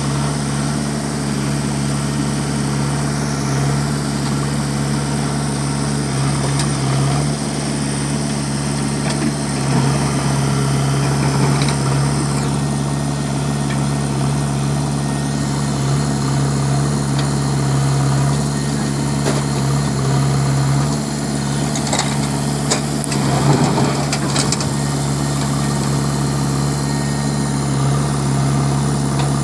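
Diesel engine of a JCB 3DX backhoe loader running steadily while its backhoe digs sand. A few short knocks and scrapes come about three-quarters of the way through as the bucket works the bank.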